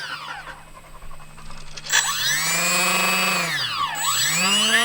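Newly installed replacement electric motor of a Mini Apprentice S RC plane whining as the throttle is worked, on its first successful test run. It starts quiet, rises to a high whine about two seconds in and drops away near four seconds. It then spins back up to a steady whine near the end.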